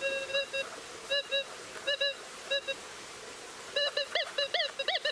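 Minelab Gold Monster 1000 metal detector signalling a very small gold nugget passed in front of its coil. It gives short beeps, mostly in pairs, for the first three seconds, then from about four seconds a quick run of chirps that rise and fall in pitch.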